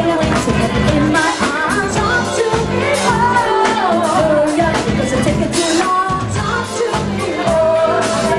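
Live cover band playing a song, a lead vocal singing over drums and bass with steady beats throughout.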